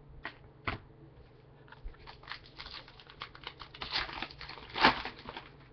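Trading cards and a foil card-pack wrapper being handled: two sharp clicks, then a spell of crinkling and crackling, loudest near the end.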